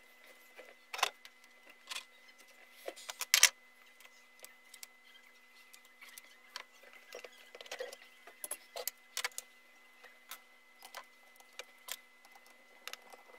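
Irregular clicks, taps and clinks of small metal parts and hand tools handled on a wooden workbench and against an electric planer's plastic housing. The loudest knocks come about a second and three and a half seconds in.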